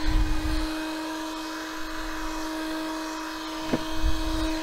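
Electric heat gun running steadily, its fan motor giving a steady hum over the rush of hot air as it heats a high-density polyethylene sheet to soften it for bending. A couple of low thumps come near the start and about four seconds in.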